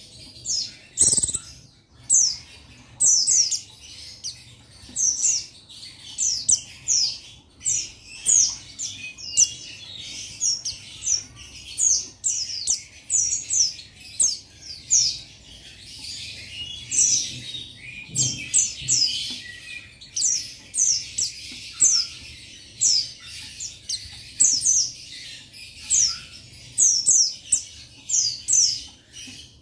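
Male buxtoni white-eye (pleci, Oriental white-eye) calling a rival: a rapid, continuous run of short, high, falling chirps, several a second. This is the male's challenge call, played as a lure to get other male white-eyes singing. A soft low thump comes about a second in.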